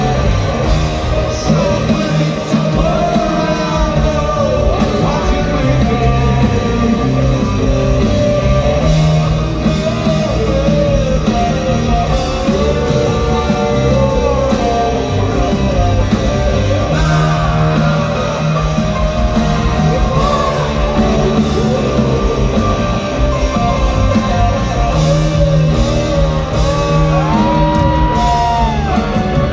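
Rock band playing live in a large arena: electric guitar, bass and drums with singing, heard from among the crowd with the hall's echo.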